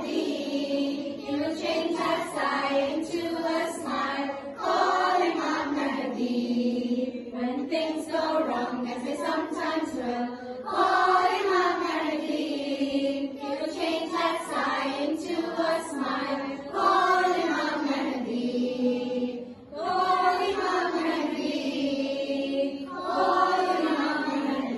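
A group of young children and women singing together in unison, a chanted refrain in phrases of a few seconds with short breaths between them.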